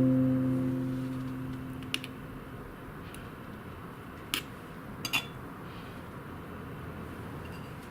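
An acoustic guitar chord fading away in the first second or so, leaving a low steady background. A few short, faint clicks or clinks follow.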